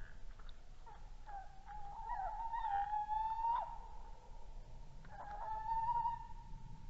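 Male tawny owl hooting: two long, wavering hoots, the first about a second in and the second starting about five seconds in.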